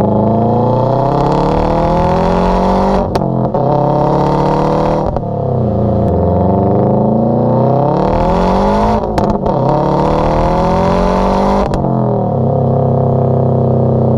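2013 Subaru WRX's turbocharged flat-four engine and exhaust under acceleration. The revs climb and drop sharply at each gearchange, about four times, then settle to a steady run near the end.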